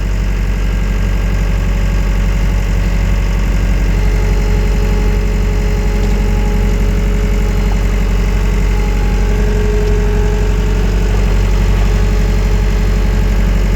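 Wacker Neuson 901S skid steer's diesel engine running steadily while the loader holds a full 1,000-litre tote of about 1,000 kg, with a faint steady whine through the middle.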